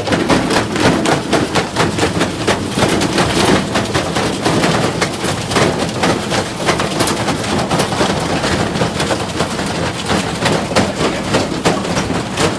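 Washing machine drum loaded with bricks, running hard: loud, continuous rapid banging and clattering as the bricks slam around inside.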